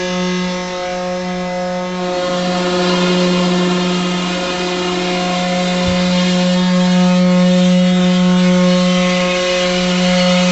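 AGEM FNC50 large-format CNC gantry milling machine at work, its spindle giving a steady hum with overtones while the cutter mills a foam block. The cutting hiss grows louder about two seconds in.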